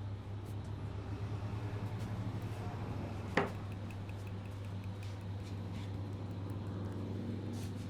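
A single sharp crack about three and a half seconds in, typical of a neck or knuckle joint cracked during a head and neck massage, over a steady low hum.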